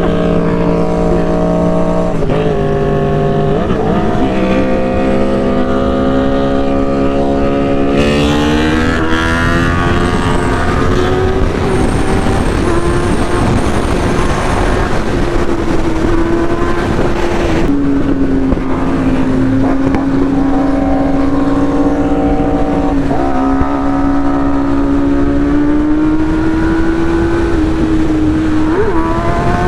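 Motorcycle engine running under way. Its pitch steps down a couple of times early on, climbs as it accelerates from about 8 to 12 seconds, and drops sharply just after the middle, with steady wind and road noise throughout.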